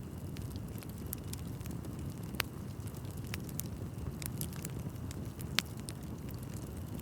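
Wood bonfire burning: a steady low rumble of flames with scattered sharp crackles and pops, two louder pops about two and a half seconds in and again near the end.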